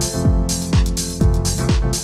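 Background music with a steady beat: a deep kick drum about twice a second, bright hi-hat or clap hits and sustained keyboard chords.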